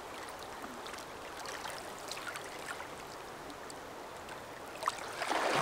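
River water flowing and lapping, with small splashes as a person wades in, and a louder splash near the end.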